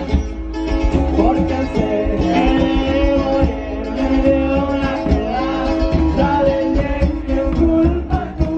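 Live band playing regional Mexican music loudly, with guitars, bass and drums and a voice singing.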